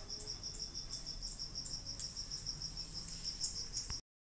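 A cricket chirping in a steady, rapid high-pitched pulse, about five chirps a second, over a faint low hum. The sound cuts off abruptly just before the end.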